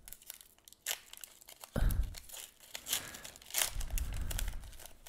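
Foil Pokémon booster pack wrapper crinkling and crackling in the hands as it is opened, with louder spells about two seconds in and again near four seconds.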